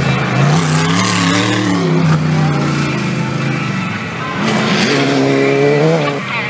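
4WD off-road race car engine revving hard, the pitch climbing and falling with the throttle. A second surge starts about four and a half seconds in and cuts off just before the end.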